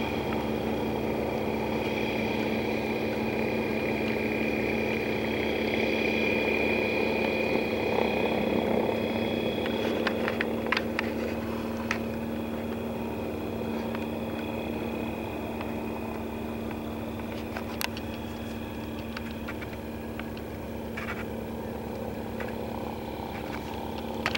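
SeaRey amphibious light aircraft's pusher engine and propeller running steadily as the plane taxis on the water, the drone easing a little after about halfway. A few sharp clicks stand out about ten to twelve seconds in and again near eighteen seconds.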